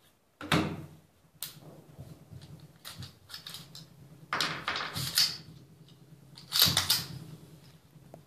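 Several sharp reports at irregular intervals, each with a short echoing tail: gunshots at a shooting range.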